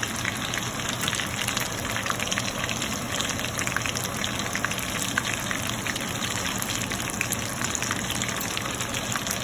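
Chicken wing lollipops deep-frying in hot oil: a steady sizzle with fine crackling throughout.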